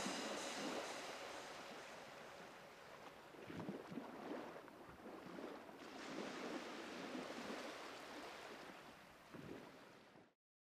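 Faint surf and wind noise, an even wash with a few soft swells, fading out near the end.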